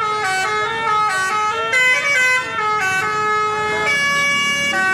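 Bus telolet horn, a basuri multi-tone air horn, playing a tune: several horn tones sound together and step up and down in pitch every half second or so without a break.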